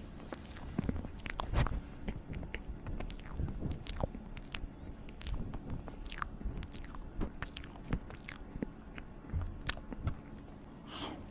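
A person chewing and biting food close to the microphone: many short, irregular mouth clicks and smacks.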